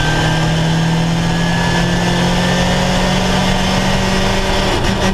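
Ginetta G40 race car's engine heard from inside the cockpit, running loud at a fairly steady pitch under power, with a brief break in the note near the end.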